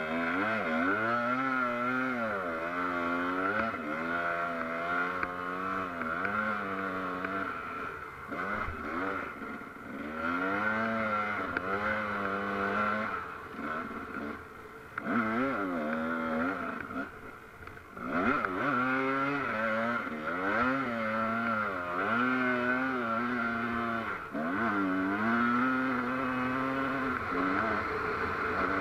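Off-road vehicle engine revving up and down over and over as it is driven hard along a rough dirt track, easing off briefly three times before picking up again.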